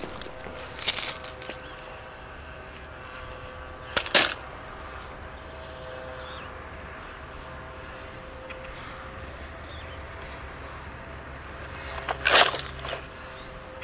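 Low steady background hum with three short knocks or clinks. The loudest comes about four seconds in, and another comes near the end.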